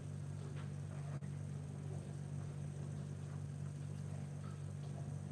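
Quiet room tone under a steady low hum, with a few faint soft handling sounds.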